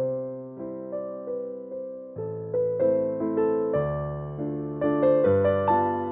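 Background piano music: notes struck one after another over lower held chords.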